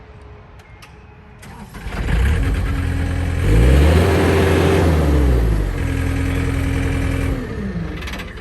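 Diesel engine of a 2007 John Deere 315 skid steer. It comes up about a second and a half in, revs higher around three and a half seconds and holds, drops back to a lower speed around six seconds, then winds down near the end.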